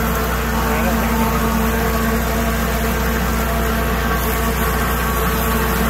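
Liberty Pumps 2-horsepower grinder pump running submerged in a water tank, with a steady motor hum over rushing, churning water as it grinds up feminine-product applicators and pumps the slurry out.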